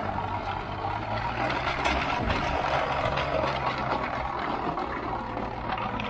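Vermeer RTX450 ride-on trencher running steadily as its digging chain cuts a trench through soil: a constant engine hum under a gritty, rattling churn of chain and earth.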